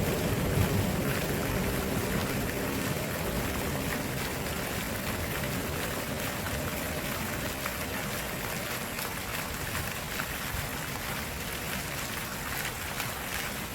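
Steady rushing of a flowing stream. A low rumble underneath fades out over the first few seconds.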